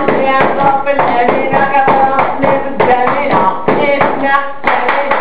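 A man singing loudly in a wavering, held voice, accompanied by rhythmic hand-clapping.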